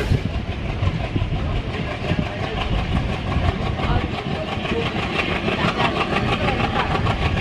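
Passenger train running at speed, heard from an open coach door: a steady rumble and rattle of the coaches on the track, with the ALCO WDM-3A diesel locomotive's engine working at the head of the train.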